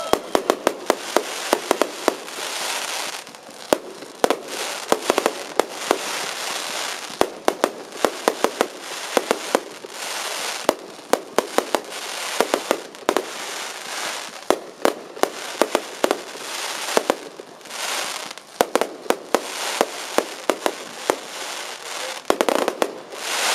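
Aerial fireworks display: shells bursting with many sharp bangs, some coming in quick clusters, at irregular intervals, over a steady hiss of burning stars.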